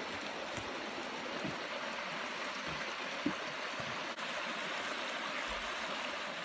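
Creek water flowing steadily: an even rush of water, with one short tap about three seconds in.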